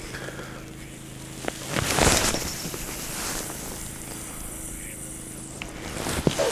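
A carp rod being cast: a single whoosh about two seconds in, lasting under a second, with a few faint clicks before and after.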